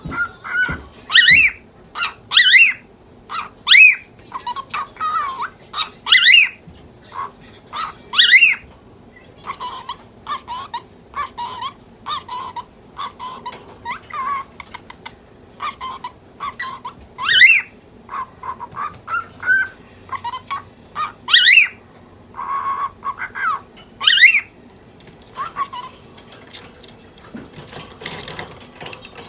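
Cockatiel calling, agitated: loud sharp chirps every few seconds with softer chattering between them, and a harsher burst a little past the middle.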